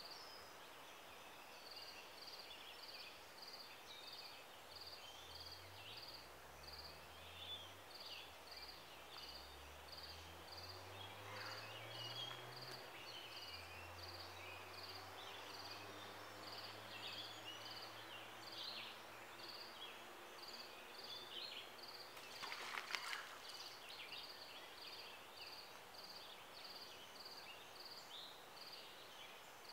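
Faint outdoor ambience: a high note pulses steadily about twice a second, with scattered short chirps. In the middle a low hum rises in pitch for several seconds, then holds, and about 23 seconds in there is a brief louder noise.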